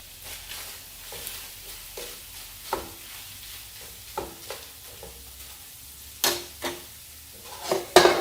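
Marinated beef pieces sizzling in a hot skillet, with repeated sharp clacks of a cooking utensil against the pan as the meat is turned, loudest about six seconds in and near the end.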